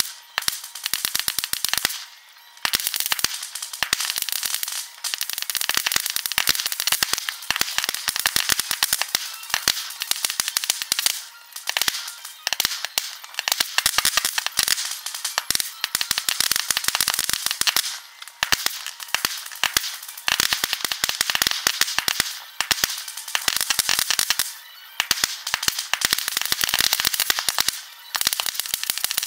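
Amateur consumer fireworks bursting and crackling, played back sped up many times over. The bangs run together into a dense, high-pitched rattle of pops, broken by a few brief lulls.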